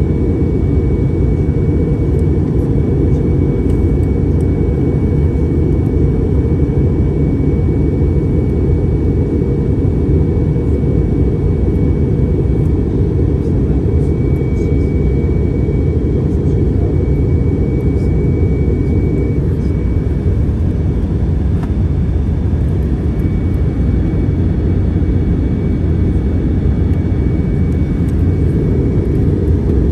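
Steady cabin noise of an airliner in flight: a constant low rumble of engines and rushing air, with a faint steady high tone above it.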